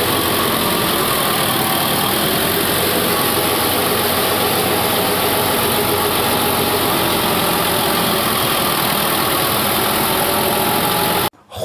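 Walk-behind power tiller's engine running steadily at a constant speed, cutting off suddenly near the end.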